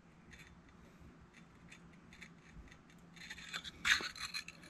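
An aluminium solar-panel mounting bracket being shifted against a roof-rack crossbar: light scraping and rubbing of metal on metal with a couple of small clicks, starting about three seconds in. Before that there is only a faint steady hum.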